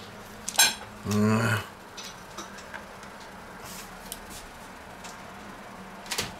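Kitchen tongs clack sharply against a plate as a toasted tortilla wrap is set down, followed about half a second later by a short, low pitched hum. A few faint ticks follow, and there is another small click near the end.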